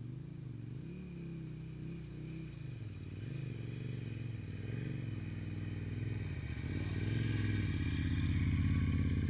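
Adventure motorcycle engine running as the bike rides through a muddy water crossing, its pitch rising and falling with the throttle and getting louder until it passes close by near the end.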